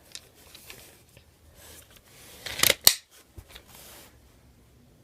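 Airsoft ARP9 300-round magazine being handled, with light rattling and a pair of sharp clicks about halfway through.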